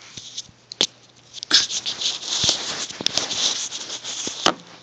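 Handling noise on a phone's microphone as the phone is picked up and turned around: a sharp click about a second in, then scraping and rubbing with small knocks for about three seconds, ending with a knock.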